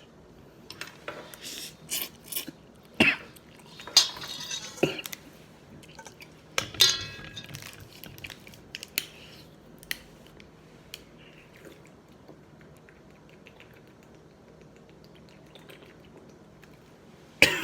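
Eating sounds: a utensil clicking and scraping against a dish while spicy noodles are eaten, with a dozen or so sharp clinks in the first ten seconds or so and then much quieter. A loud clatter or mouth sound comes right at the end.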